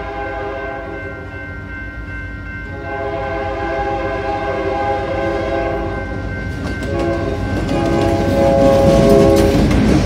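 Diesel freight locomotive's air horn sounding for a road grade crossing in long blasts, with brief breaks about two and six seconds in. The locomotive's engine and wheels grow louder as it approaches and passes near the end.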